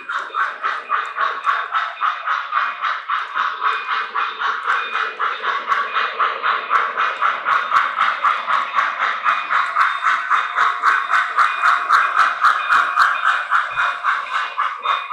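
Model steam locomotive's onboard sound system playing a steady steam chuff, about three to four chuffs a second, as the train runs. It grows somewhat louder in the second half.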